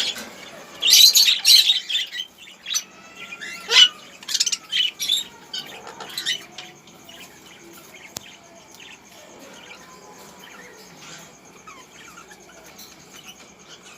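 Lovebirds chirping and screeching in sharp, loud bursts for the first six seconds or so, then only faint scattered chirps.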